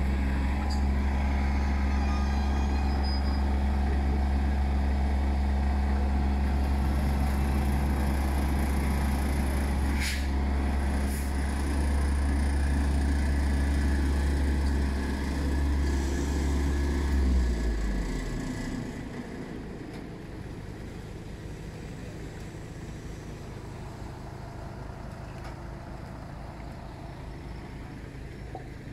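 Heavy truck's diesel engine pulling a house on a multi-axle removal trailer, running with a deep steady drone. About seventeen seconds in the engine note drops and the sound gets quieter, leaving a lower throbbing rumble.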